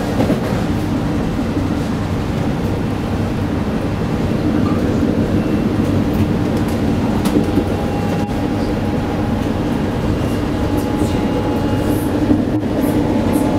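Steady running noise inside a moving passenger train carriage: a low, continuous rumble of the wheels on the track. A faint steady whine joins about halfway through.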